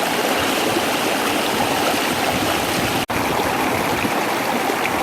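Waterfall: a steady rush of falling water. It cuts out for a split second about three seconds in, an edit splice in the recording, then carries on.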